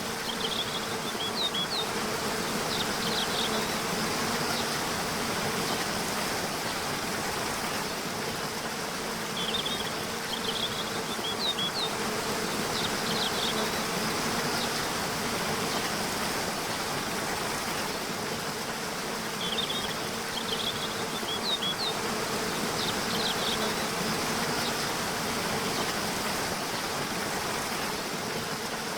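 Waterfall rushing steadily, with an insect buzzing in a low wavering drone over it. A short phrase of bird chirps comes back about every ten seconds.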